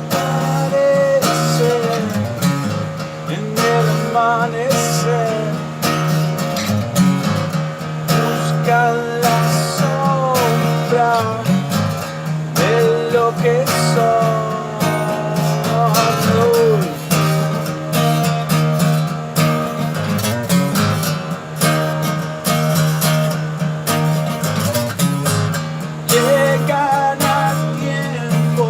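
Acoustic guitar music: a guitar plays a chord accompaniment, with a gliding melody line above it.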